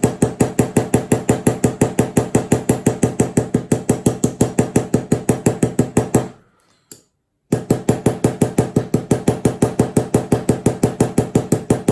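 Small ball peen hammer tapping rapidly and evenly on a straight razor's pivot pin, peening (mushrooming) the pin over its washers, about five or six light taps a second, with a pause of about a second a little past the middle.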